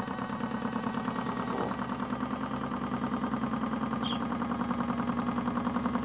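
Modified Miele W1 toy washing machine running its small electric motor, the drum turning with rinse water inside. A steady hum with a fast, even rattling pulse that grows slowly louder.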